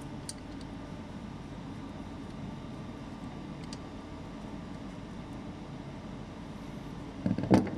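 A ratchet with a Torx bit loosening the drain plug on a truck air-dryer housing: a couple of faint ticks, then two sharp metallic clicks near the end, over a steady low mechanical hum.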